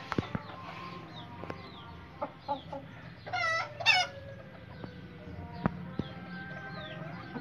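A small flock of chickens, bantam and Aseel roosters with hens, clucking, with scattered sharp clicks and thin high falling chirps. About three seconds in, one bird gives a short, loud two-part call.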